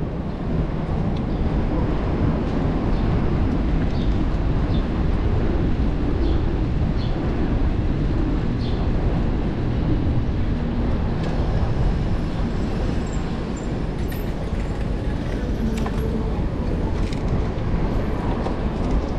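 Steady low rumble of wind and road noise picked up by a microphone on a bicycle riding down a city street, with a few faint high ticks in the first half.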